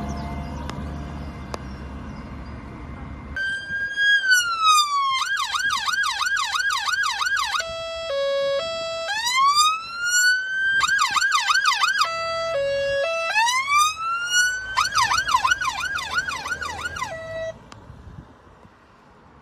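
Emergency vehicle's electronic siren, starting about three seconds in. It cycles repeatedly through a falling wail, a fast yelp of a few sweeps a second, a short low two-note hi-lo and a rising wail, then cuts off near the end. Before it starts, a low engine rumble is heard.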